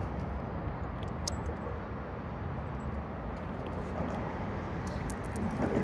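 Steady rumble of road traffic, with a few faint small clicks.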